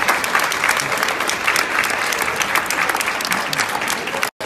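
A crowd applauding: many hands clapping in a dense, steady patter, cutting out for an instant near the end.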